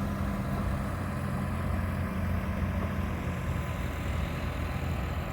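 Street traffic: a vehicle engine running with a low hum that fades about two seconds in, over a steady wash of traffic noise.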